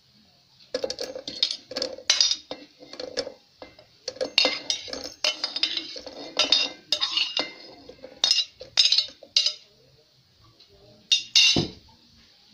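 Metal kitchen utensils clinking and scraping against cookware in a quick, irregular run of knocks, then two sharper knocks near the end, the last one ringing briefly.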